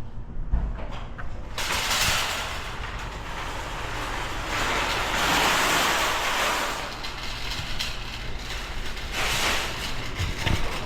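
Road and wind noise: a low steady hum under a rushing sound that swells and fades three times, loudest about five to six seconds in.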